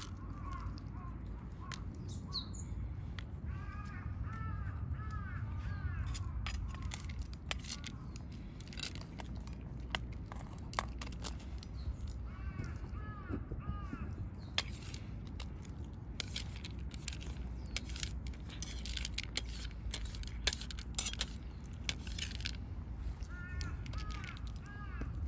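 Crows cawing outdoors in three short runs of repeated calls, over a steady low rumble. Sharp clicks and ticks are scattered throughout.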